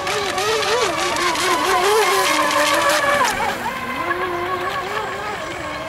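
Electric motors of radio-controlled Eco Expert racing model boats whining at speed, the pitch wavering as they turn, dropping about three seconds in and rising again a moment later, over the hiss of spray off the hulls.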